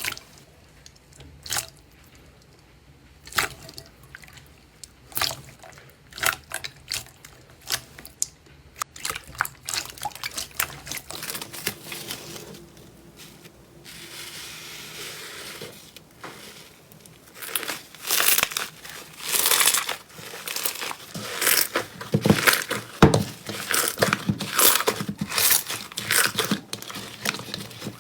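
Slime being pressed and worked by hand: separate sharp clicks and pops for the first several seconds, then dense crackling and crunching that grows louder toward the end.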